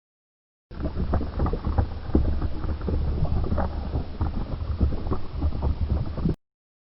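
Lava sound effect: a deep, steady rumble thick with crackling and popping. It starts under a second in and cuts off abruptly near the end.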